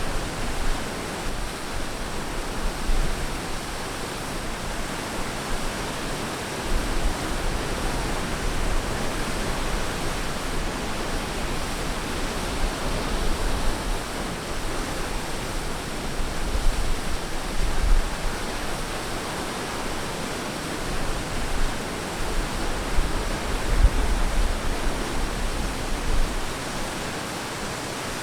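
Ocean waves breaking and washing on a beach: a steady hiss of surf with a low rumble underneath that swells and eases.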